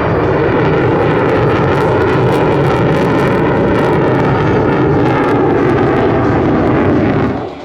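Loud, steady jet noise of a USAF F-35A Lightning II and F-22 Raptor making a formation pass, cutting off suddenly near the end.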